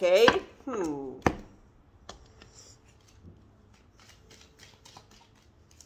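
Tarot cards being handled and laid down on a table: a sharp tap just over a second in, then a run of faint light clicks and rustles. A voice is heard briefly at the start.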